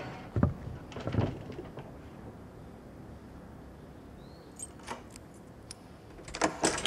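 A few dull knocks, then a quiet stretch, then a short high squeak and several light clicks from a wooden door being handled from outside.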